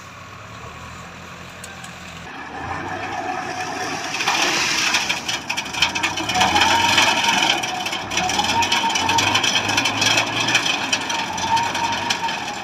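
Sugarcane harvester running under load, its engine droning while the cutters chop and crackle through cane stalks. It gets louder about four seconds in, with a wavering whine over the top.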